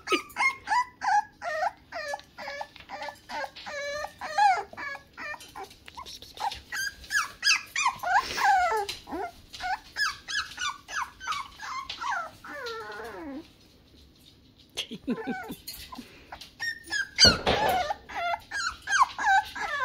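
Six-week-old toy poodle puppy whining and yipping in a fast run of short, high cries that fall in pitch, several a second, with a brief pause a little over two-thirds through and a louder, harsher cry soon after. The owner reads the fussing as the puppy being mad.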